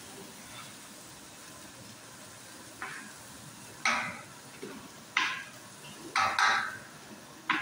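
Dosa batter ladled onto a large hot flat griddle, sizzling in short bursts each time a ladleful hits the surface. The sizzles start about three seconds in and come about once a second, each fading within half a second.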